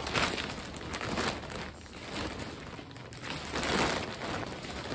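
Clear plastic vacuum-storage bag crinkling and rustling in several surges as bulky bedding is pushed and squeezed into it by hand, the loudest surge about four seconds in.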